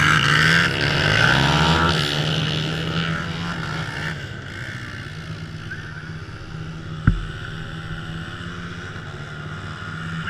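Small engines of vintage ATC three-wheelers: another trike goes past close by, then the engine of the trike carrying the camera drops back and runs at a steady idle. There is a single sharp knock about seven seconds in.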